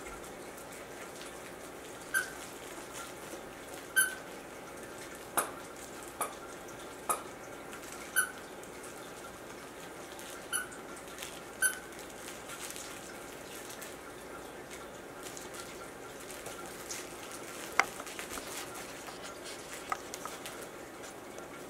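A West Highland White Terrier puppy chews a squeaky dog toy, which gives about five short squeaks a second or two apart. Sharp clicks and taps of teeth on the toy come between them, and two more clicks come later.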